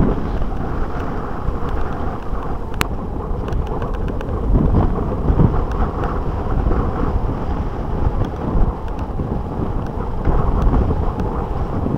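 Wind buffeting the microphone of a camera riding on a mountain bike, mixed with the rumble and rattle of riding over a dirt track, with a sharp click about three seconds in.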